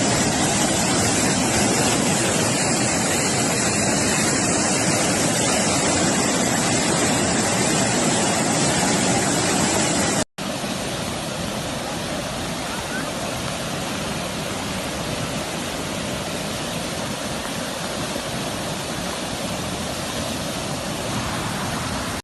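Fast-flowing floodwater rushing in a steady torrent. It breaks off for an instant about ten seconds in, then carries on slightly quieter.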